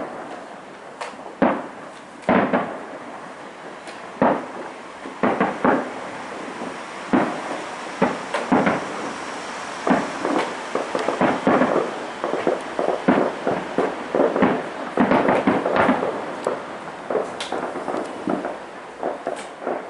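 Fireworks going off: irregular bangs and crackles, some single and some in rapid clusters, with a dense run of crackling about three quarters of the way through.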